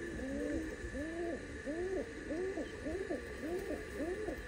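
Domestic pigeons cooing: a run of overlapping rising-and-falling coos, about two or three a second.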